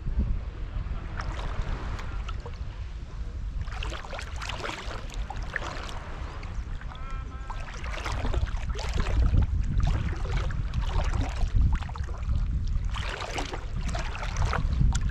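Shallow seawater sloshing and splashing around a camera held at the surface, irregular splashes over a constant low rumble of water moving against the microphone.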